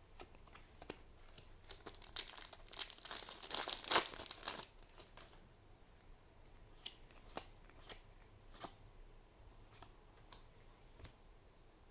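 A foil booster pack's wrapper crinkling and tearing open for about three seconds, a couple of seconds in, followed by scattered light clicks of trading cards being handled.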